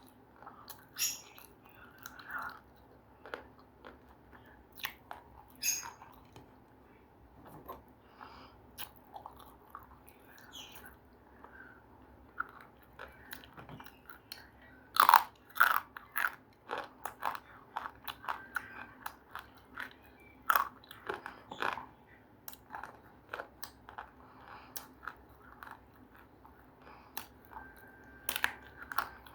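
A person biting and chewing something crunchy in irregular sharp crunches, with the loudest run of bites about halfway through.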